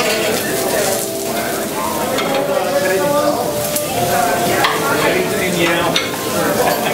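Sliced vegetables sizzling steadily on a hot steel teppanyaki griddle, with a few sharp clicks of a steel spatula against the griddle.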